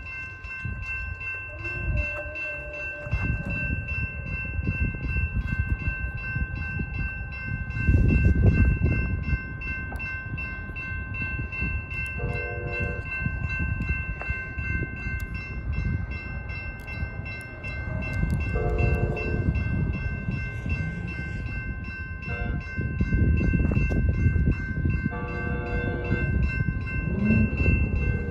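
Railroad crossing bells ringing steadily with rapid strikes while an approaching Amtrak train's horn sounds the grade-crossing signal: two long blasts, a short one, then a long one, starting about 12 seconds in. A low rumble swells loudest around 8 seconds in.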